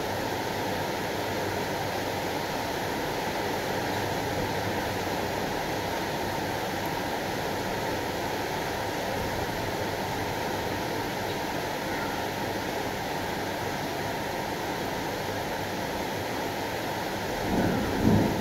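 Thunderstorm: a steady wash of rain and wind noise, with a brief louder low rumble near the end.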